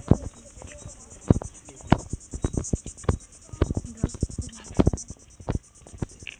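Footsteps on a paved path, roughly one to two steps a second, over a steady, high, pulsing insect drone.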